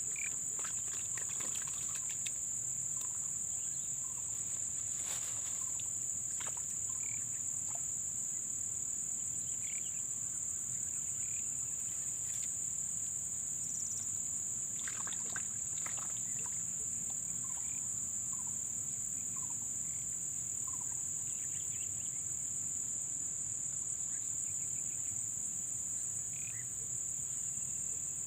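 Steady high-pitched chorus of insects such as crickets, with scattered short chirps and a few sharp clicks here and there.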